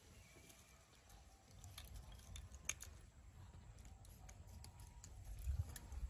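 Faint outdoor background: a low, uneven rumble with a few light clicks, a cluster about two to three seconds in and another near the end.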